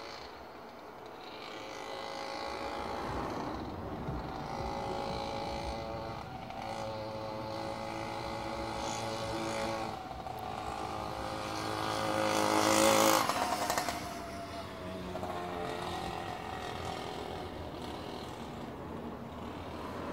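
A motor vehicle's engine passing by, growing louder to a peak about two-thirds of the way through, then dropping away with a falling pitch.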